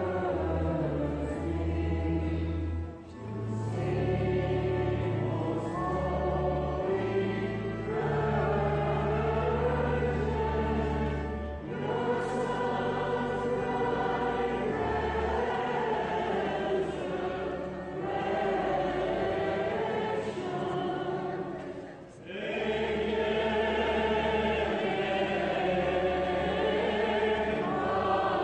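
Mixed church choir singing a Greek Orthodox hymn in long sustained phrases, with short breaks between phrases about 3, 12 and 22 seconds in.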